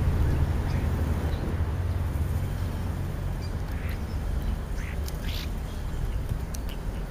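Wild birds at a feeder giving a few short, harsh calls, about four spread over several seconds, over a steady low rumble.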